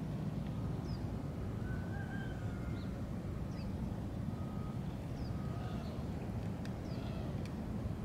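Outdoor ambience: a steady low rumble with small birds chirping, short high falling chirps about once a second and a few brief whistled notes.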